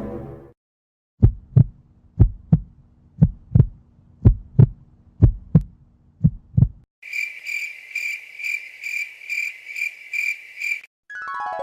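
Heartbeat sound effect: six double thumps (lub-dub) about a second apart over a faint low hum. Then a crickets-chirping sound effect, a high chirp pulsing several times a second for about four seconds, and a sweeping tone starting near the end.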